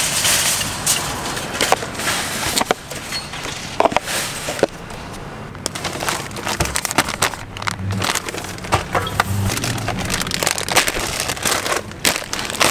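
Plastic food packaging crinkling and rustling as grocery packages are handled, with sharp knocks and taps as items are set down on a hard surface.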